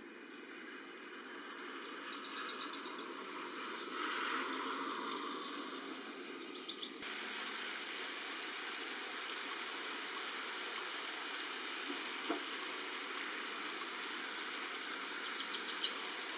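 Steady rain falling, a constant hiss that fades in over the first few seconds. A few faint high chirps from goldfinch chicks come through it, with a short run of them near the end.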